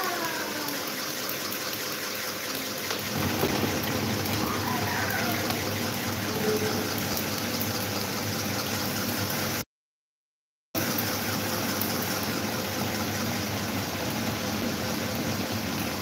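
Several electric fans running at once: a steady rush of moving air, with the fan draught buffeting the microphone. The sound cuts out completely for about a second near the middle.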